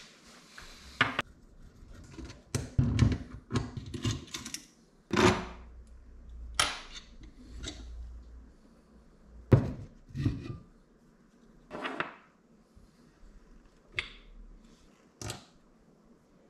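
Metal motorcycle clutch parts being handled and set down on a workbench: a dozen or so irregular clinks and knocks, some coming in quick clusters.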